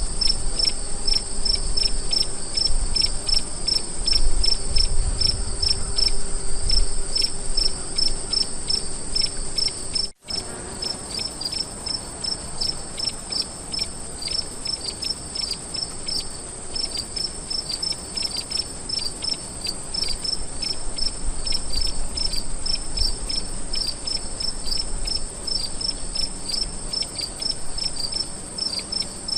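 Crickets chirping: a steady high trill under rapid, evenly repeated chirps, several a second. The sound drops out for an instant about ten seconds in.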